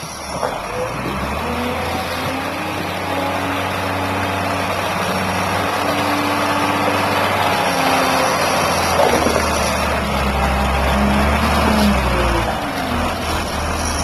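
Wheel loader's diesel engine running under load, its pitch rising and falling as the machine drives and works its forks, climbing in the second half.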